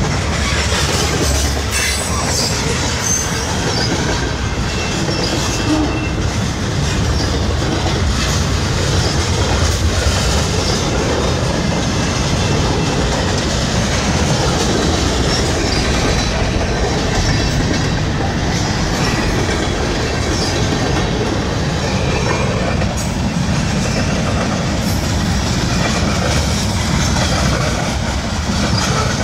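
Freight train of tank cars and covered hopper cars rolling past, a steady, loud noise of steel wheels running on the rails.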